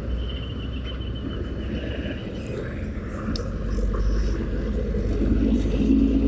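Steady rumble of traffic and wind heard from a moving motorcycle, growing louder over the last couple of seconds as a large truck passes close alongside.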